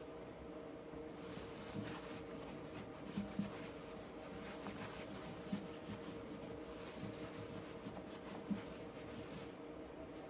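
Hand scrubbing of a car's painted steel firewall with dish soap: a steady scratchy rubbing that starts about a second in and stops near the end, with a few light knocks along the way. A faint steady hum sits underneath.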